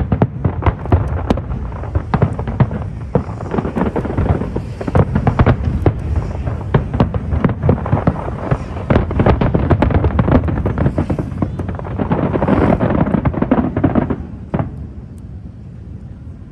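Aerial fireworks going off in a dense barrage: many overlapping bangs and crackles, several a second. They die away about two seconds before the end.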